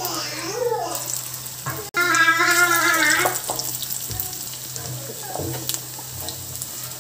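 Onion vadai batter deep-frying in hot oil in an iron kadai, a steady sizzle as small balls of batter are dropped in. A high-pitched voice cuts in briefly near the start and again, louder, for about a second from two seconds in.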